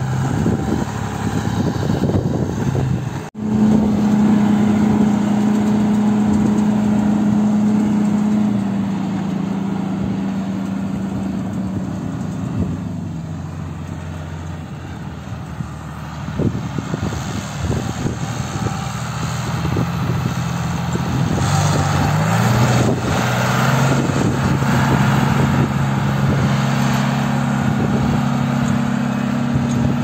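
John Deere 3140 tractor's six-cylinder diesel engine working steadily under load while pulling a three-furrow reversible plough through the soil. The engine note drops out briefly a few seconds in, is quieter for a stretch in the middle, and shifts in pitch before settling again.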